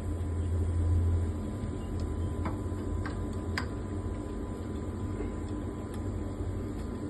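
A steady low hum with a few faint, sharp clicks in the middle, from a screwdriver working the top screws of a Mahlkönig E80 Supreme coffee grinder's burr housing.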